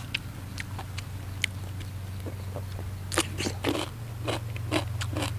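A person chewing crunchy raw vegetables close to the microphone, with crisp crunches that come thickest about three seconds in. A steady low hum runs underneath.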